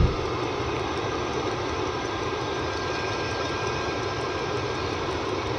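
8 kW diesel air heater running steadily, lit and burning: a constant rushing noise from its combustion and air blower fans with a faint steady whine.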